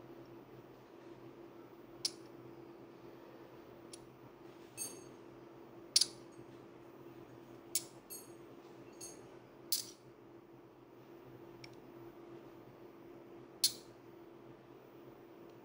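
Two thin metal rods clinking and tapping together close to the ear, about ten irregular sharp clicks. Some carry a short metallic ring, and the loudest comes about halfway through.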